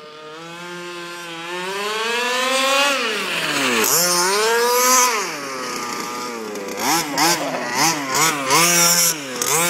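HPI Baja 5B's small two-stroke gas engine with a tuned pipe, revving under hard throttle. The pitch climbs for about three seconds, drops briefly and climbs again, then holds before a run of quick throttle blips from about seven seconds in.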